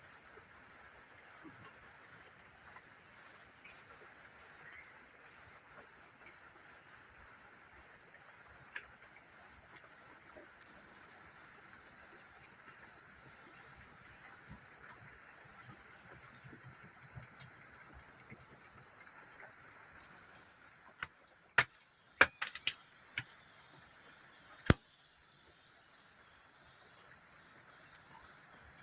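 Steady high-pitched chorus of insects, continuous throughout, with a handful of sharp knocks about three quarters of the way through.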